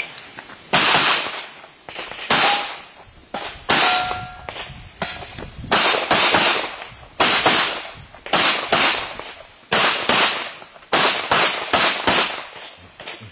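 Handgun shots fired in rapid strings, about twenty in all, many as quick pairs about a third of a second apart, with short pauses between groups. A brief ringing tone follows a couple of the shots.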